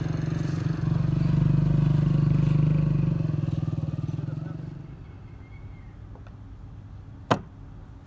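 Vehicle engine running with a steady low hum, fading away about five seconds in. One sharp click near the end.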